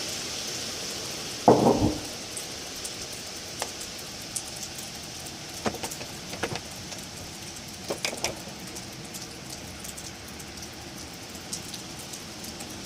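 Wind blowing through trees: a steady hiss of rustling leaves, with a brief louder low rush about a second and a half in and a few scattered light ticks.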